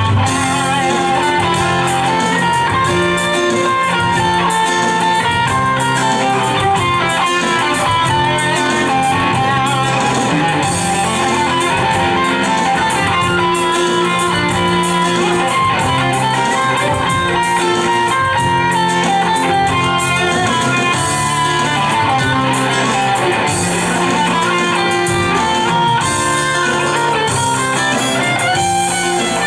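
Live band playing an instrumental passage: electric and acoustic guitars, bass guitar, keyboards and drums.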